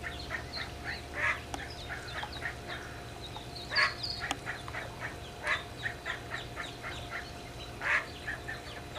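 A brood of ducklings peeping rapidly and without a break in short, high, falling chirps, with a few louder calls standing out about every two seconds. A faint steady low hum runs underneath.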